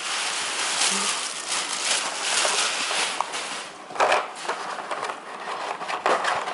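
Clear plastic blister packaging crinkling and crackling as it is handled, with sharper clicks about four and six seconds in.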